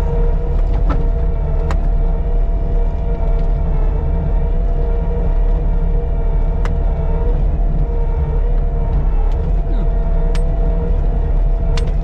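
Caterpillar 299D2 compact track loader running steadily as it drives across a corn stubble field, heard from the operator's seat: a low engine rumble with a steady whine over it, and a few sharp clicks scattered through.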